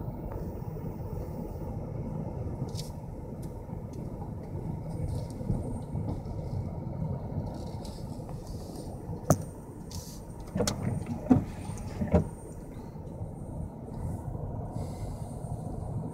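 Steady low rumble of a motor vehicle running, with a few sharp knocks a little past halfway.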